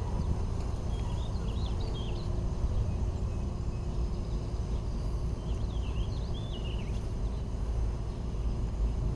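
Steady low outdoor rumble, with faint high bird chirps about a second in and again around six seconds in.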